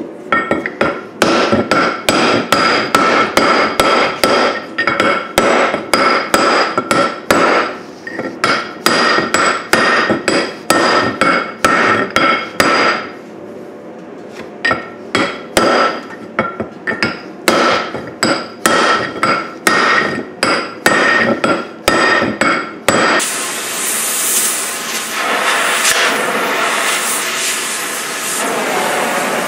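Rapid ringing hammer blows on the tractor's cast-iron flywheel, about two to three a second, with a short pause around the middle. About 23 seconds in they stop and the steady hissing roar of an oxy-acetylene cutting torch takes over, cutting into the flywheel ring gear to free it.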